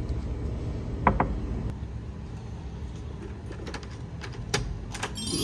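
Door handle and lock of a wooden door clicking as it is unlocked, several sharp clicks near the end, over a steady low hum. Two short beeps sound about a second in.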